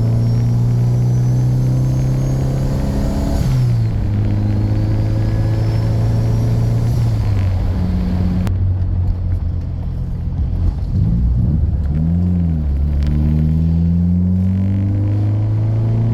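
Turbocharged Honda engine pulling through the gears on the road. Its pitch climbs, then drops at an upshift about three and a half seconds in and again about seven seconds in, with a faint high whine rising alongside. It runs steadier at lower revs for a few seconds, then climbs again near the end.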